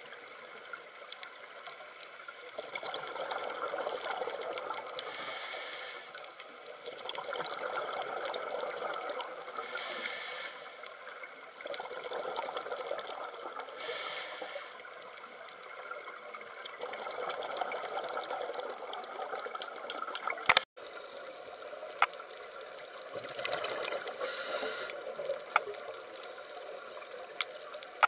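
Underwater ambience as picked up through a camera housing: a watery rushing noise that swells and eases every few seconds, with a few sharp clicks and a brief break about three-quarters of the way through.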